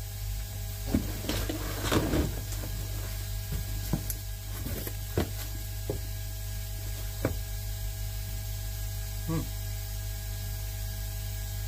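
Cardboard delivery box being opened and its packing handled: scattered rustles, scrapes and taps, thickest in the first half. Under them runs a steady low hum.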